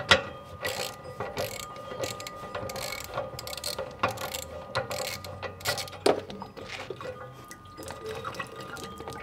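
Ratchet wrench with a 1-1/16-inch socket clicking in quick, uneven runs as it unscrews the anode rod from a Suburban RV water heater tank.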